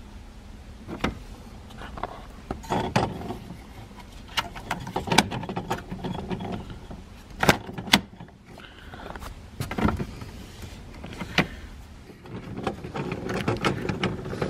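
Irregular sharp clicks and taps with rustling in between: a replacement turn signal switch being handled and fitted onto the steering column of a 2007 Chevy Cobalt.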